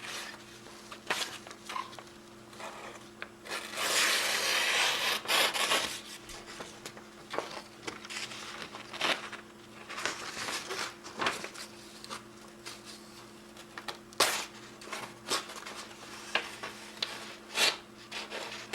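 A sharpened carbon-steel knife slicing through paper to test its edge. There is one longer cut about four seconds in, then scattered short rubbing and crinkling sounds as the paper is handled. A faint steady hum runs underneath.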